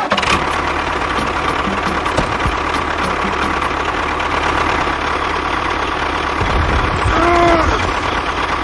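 Steady running drone of a mini tractor's engine. About seven seconds in, a short pitched call rises and falls over it.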